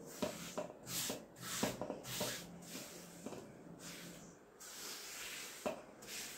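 A hand sweeping across a floured marble board, brushing small pieces of cut mantı dough along in a series of short swishes, with light clicks of the pieces.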